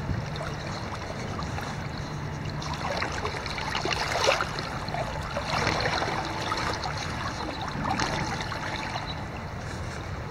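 Shallow river water running over a stony gravel bed, a steady rush that swells louder a few times.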